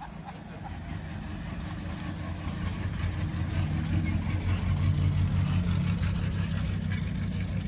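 Classic Studebaker sedan driving slowly past at close range, its engine running with a low steady hum. The hum gets louder as the car comes by, is loudest about five seconds in, then eases slightly as it pulls away.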